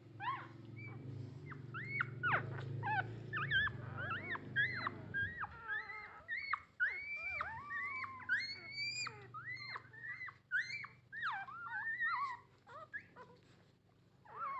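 Newborn puppies whimpering and squeaking in many short, high-pitched cries that rise and fall, overlapping in quick succession: hungry pups calling to nurse. A low steady hum sits under the first five seconds.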